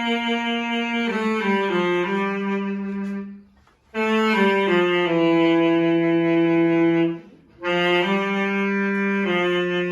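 Saxophone playing a slow melody of long held notes joined by short stepwise falls in pitch. The player breaks off briefly for breath twice, about three and a half and seven seconds in.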